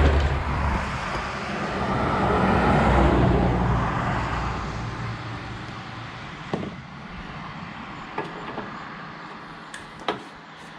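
Road noise from a passing vehicle swells and fades over the first four seconds. After that come a few short, light clicks and taps.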